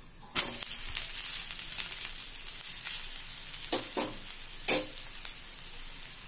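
Rice-flour roti sizzling in oil on a hot tawa: the sizzle jumps up suddenly just after the start as the roti is turned over onto its oiled side, then runs steadily, with a few short knocks, the sharpest a little past the middle.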